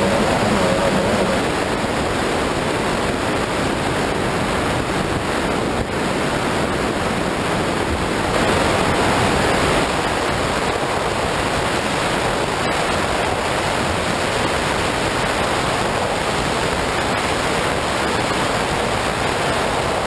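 Loud, steady rush of wind and water against an onboard camera on an offshore racing powerboat running at speed. The engine's tone shows for about the first second, then is buried in the noise.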